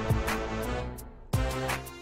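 Background electronic music with a steady drum beat; it thins out briefly just past a second in, then the beat comes back.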